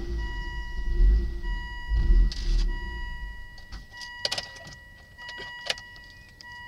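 2001 Volvo V70's five-cylinder engine dropping from a rev back toward idle, then shut off about three seconds in. A few sharp clicks follow once it has stopped, over a steady high tone.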